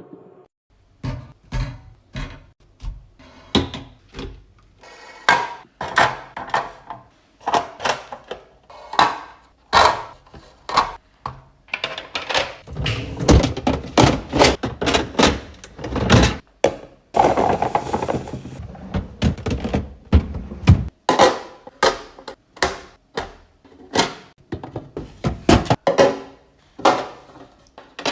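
Items such as containers, cans and packages being handled and set down: a run of uneven knocks and thunks, about one or two a second, thickening into denser clatter between about twelve and twenty-one seconds in.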